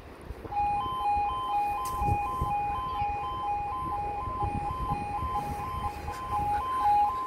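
UK railway level crossing warning alarm (the two-tone 'yodel') starting about half a second in. It alternates steadily between a lower and a higher tone about twice a second. It signals that a train is approaching and the barriers are about to lower.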